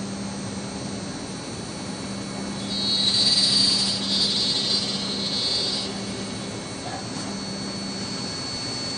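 A CNC spindle runs a carbide drill/thread mill cutting cast aluminum, with a steady low hum and a steady high tone. For about three seconds in the middle, a louder, higher cutting noise rises over it as the tool works the metal.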